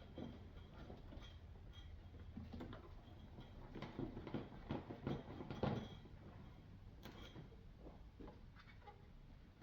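Faint clicks and light knocks of hand work at a coolant hose connection, busiest about four to six seconds in, over a low steady hum.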